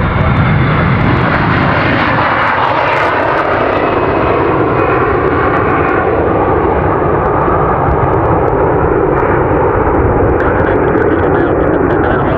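Airbus A321 jet engines at takeoff thrust, a loud, steady roar, as the airliner races down the runway, lifts off and climbs away.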